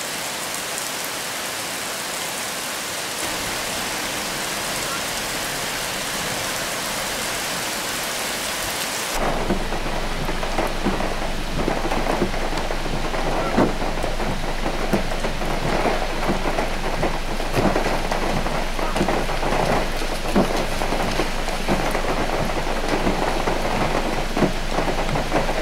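Heavy monsoon rain. It starts as an even hiss, and about nine seconds in it turns to a louder, lower downpour with a dense patter of separate drops.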